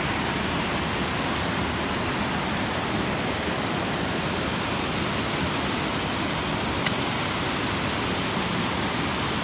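Water rushing out of a dam spillway into a concrete channel: a steady, even noise. One sharp click about seven seconds in.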